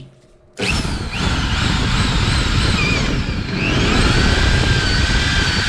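Electric power tool starts suddenly about half a second in and runs on, cutting into wood, its high motor whine wavering in pitch as the load changes.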